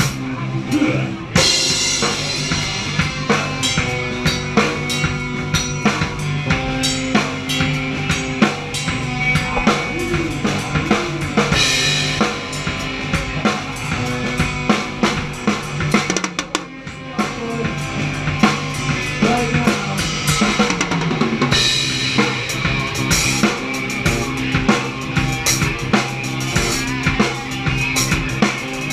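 Rock band playing live, the drum kit loudest and close up: kick drum, snare and cymbals driving a steady beat under the held notes of the rest of the band. The music drops back briefly a little past halfway, then picks up again.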